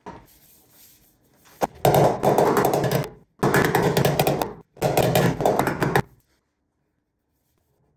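Pneumatic air hammer rattling against the welded-in sheet-metal patch on a truck cab's steel panel, in three bursts of about a second each. The patch plugs the old fuel filler hole.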